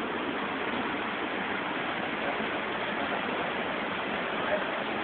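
The Misol-Ha waterfall rushing: a steady, unbroken noise of falling water.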